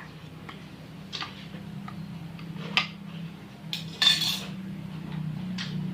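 A spoon scooping slime, knocking and scraping against a container in a few separate clinks, the brightest about four seconds in. A steady low hum runs underneath.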